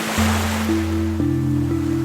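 Soft ambient music with sustained low chords that change a couple of times, over ocean waves washing in, one swelling surge near the start.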